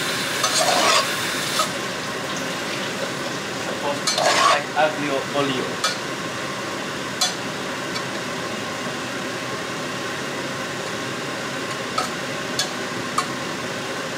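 Slotted metal spatula stirring and tossing spaghetti in a stainless steel pot, with scattered scrapes and clinks of metal on the pot over a steady sizzle of the pasta in hot oil.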